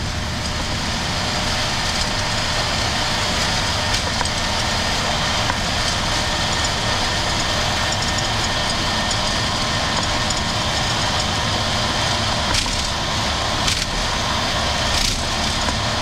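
Boeing 737-700's CFM56 turbofans running at takeoff thrust during the takeoff roll, heard from the flight deck: a steady noise with high whining tones, growing slightly louder at first, and a few knocks in the last few seconds.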